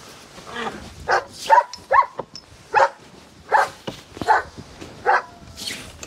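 A dog barking over and over, a little more than one bark a second.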